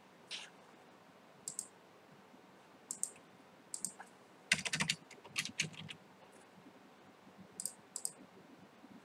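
Computer keyboard keystrokes and clicks, sparse and irregular: single taps and short clusters with pauses between them, a quicker run of several about halfway through.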